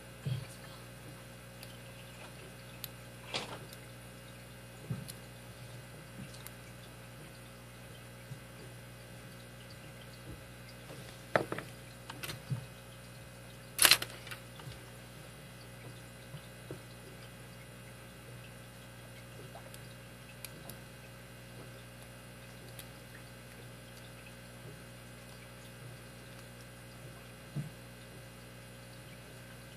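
Occasional small clicks and taps of a lock pick and tension wrench working the pins of a Master Lock 160 padlock, the sharpest one about halfway through, over a steady faint hum.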